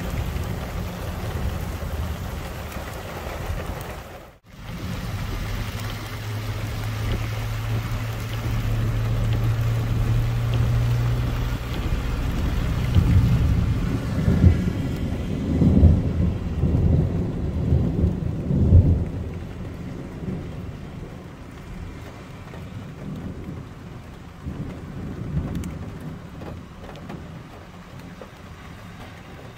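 Thunderstorm: steady rain with low rolling rumbles of thunder, strongest about halfway through, easing to a quieter rain hiss toward the end.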